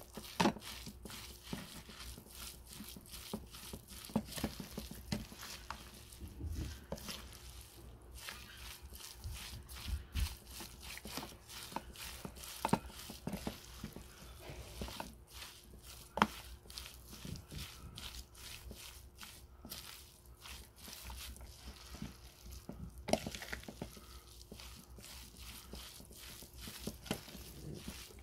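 Bare hand mixing bibimbap rice and vegetables in a plastic bowl: a continuous run of soft, irregular squelches and clicks.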